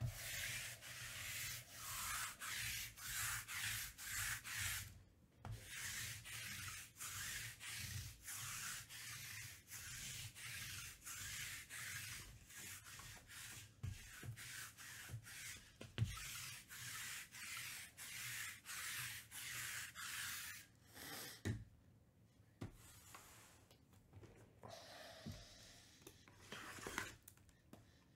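Cardboard trading-card boxes being slid and shuffled across a cloth-covered table: repeated hissing rubbing strokes about twice a second. The strokes give way to quieter, scattered handling sounds near the end.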